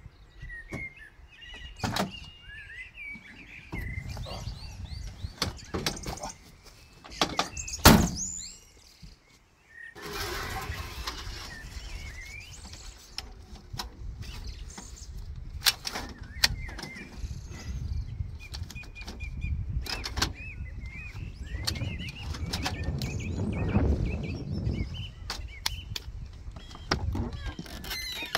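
Clanks and knocks of an aluminium ladder being pulled out, handled and set against a truck camper's metal body, the loudest clank about eight seconds in. Small birds chirp throughout.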